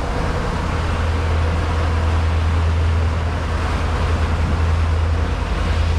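Fishing boat's engine running steadily under way, a low drone with a hiss of wind and water over it.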